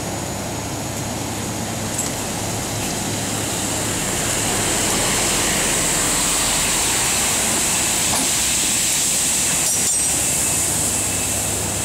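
Steady mechanical hum and hiss of a refrigerated shipping container's cooling unit running, getting slightly louder about four seconds in, with a few faint clicks.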